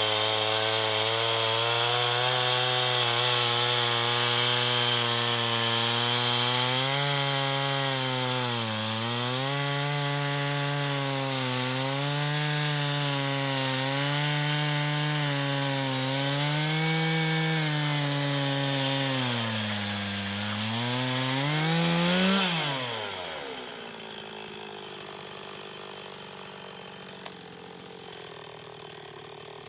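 Two-stroke chainsaw bucking a log. The engine runs high and steady at first, then its pitch dips and recovers again and again as the chain bites into the wood. About 23 seconds in, the engine briefly rises, then winds down and stops. In this cut the log's compression side pinched the bar and wedged the saw.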